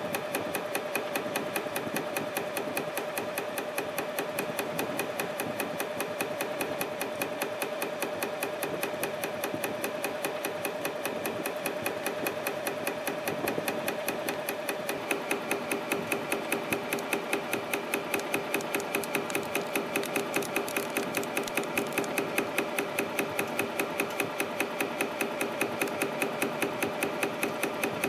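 CNC spring coiling machine running at production speed, making tiny compression springs from 0.35 mm wire: a fast, even ticking, several strokes a second as each spring is coiled and cut, over a steady motor hum. About halfway through, the strokes become more distinct.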